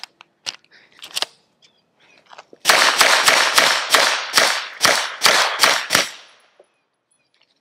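Suppressed 9mm Lone Wolf Dusk 19 pistol fired in a quick string of about a dozen shots, roughly three a second, each followed by a short ringing tail. A few faint clicks come first.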